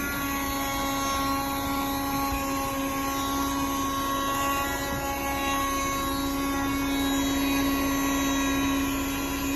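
1973 Dynamic handheld car vacuum's small electric motor running steadily with an even whine while sucking dirt from the seat.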